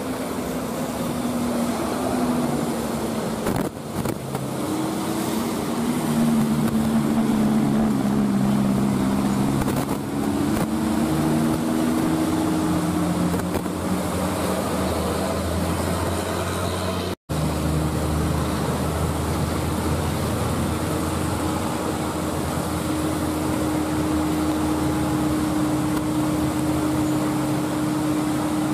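Motor vehicle engine running, its pitch rising and falling through the first half. After a brief cut-out it holds a steady note.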